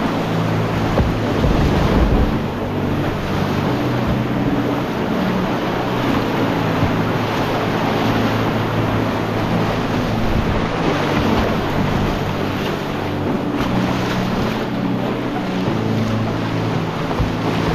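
Whitewater river rushing steadily, with wind noise on the microphone.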